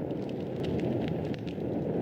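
Wood fire in a fireplace crackling, with frequent small irregular pops over a steady low rumble of the burning flames.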